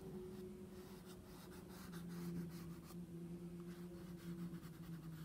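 Soft chalk pastel stick scraping across toned gray paper in many short strokes, a faint scratchy rubbing, over a steady low hum.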